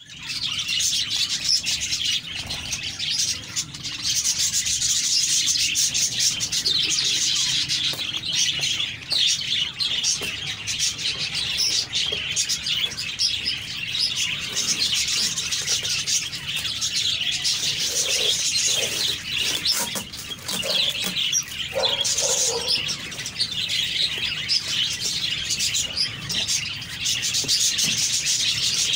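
Many small birds chirping without pause, a dense chorus of overlapping high chirps.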